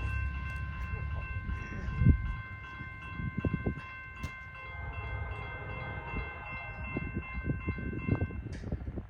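A train passing, its horn holding one steady note that cuts off sharply near the end. Engine rumble fades away about two seconds in, and wheels clank on the rails throughout.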